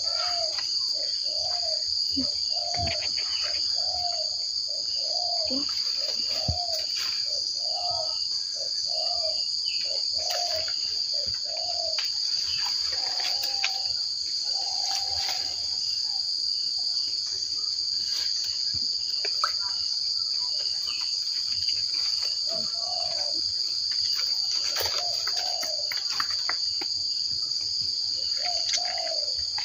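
Insects in the undergrowth keep up a steady, high-pitched drone. Over it a short low call repeats about once a second through the first half, and comes back a few times near the end. Faint clicks and rustling of leaves sound now and then.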